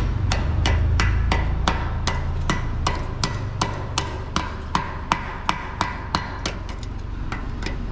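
An ice pick used as a chipping hammer, tapping fresh welds on a steel head yoke to knock the welding slag off: a steady run of sharp metal taps, about two and a half a second.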